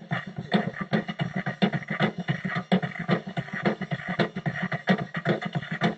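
Background music with a fast, busy beat.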